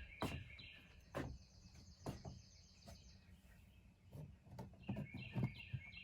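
Songbirds singing: a quick series of falling chirped notes at the start and again near the end, with a high trill lasting about two seconds in between. A few soft knocks sound now and then.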